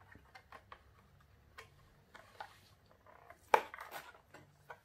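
Clear plastic blister pack of a die-cast toy car crackling and clicking in the hands as the car is worked loose, with one sharper click about three and a half seconds in.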